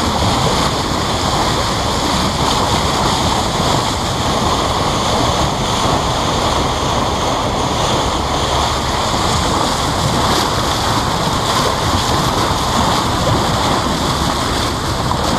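Water rushing and splashing along the hull of a moving boat, with wind buffeting the microphone, in one steady, unbroken rush.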